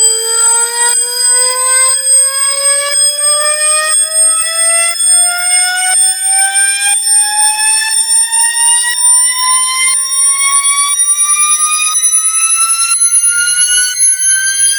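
Electronic alarm ringtone: a loud, buzzy tone whose pitch climbs slowly and steadily, with a faint break about once a second.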